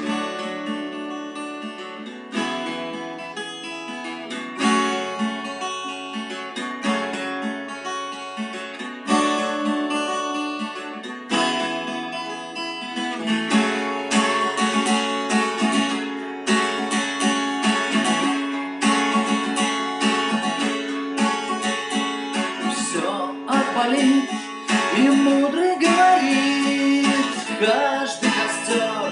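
Acoustic guitar playing a song's instrumental intro. At first the chords change every couple of seconds; from about halfway through the strumming gets busier and fuller.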